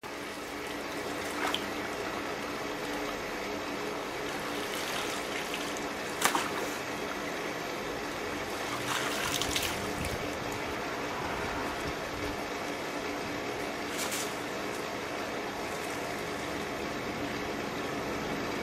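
Swimming pool water trickling and circulating steadily over a faint steady hum, with a few light knocks, the loudest about six seconds in.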